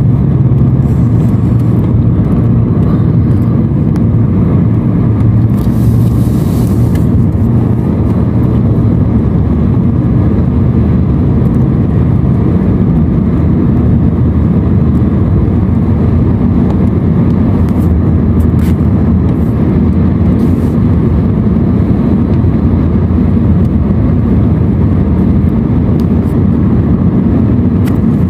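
Car driving at highway speed, heard from inside the cabin: a steady, low drone of engine and tyre noise. A short hiss rises over it about six seconds in.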